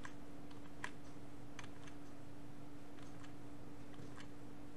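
A handful of faint, irregular clicks at a computer over a steady low electrical hum and background hiss.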